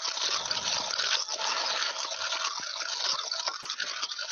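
Handheld stick blender running in a saucepan of fruit purée, a steady whirring, churning sound with a few faint clicks, as sugar and cornflour are blended in until smooth.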